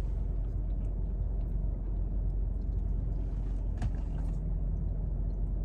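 Steady low rumble inside a running car, with a single light tap about four seconds in.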